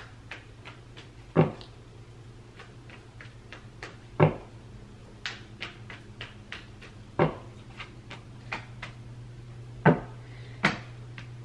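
Tarot deck being shuffled overhand by hand: a run of soft card clicks and flicks, with five louder knocks of the cards spaced about every three seconds.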